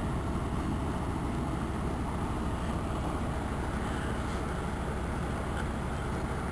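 Steady low rumbling background noise on the camera's microphone, with no distinct events standing out.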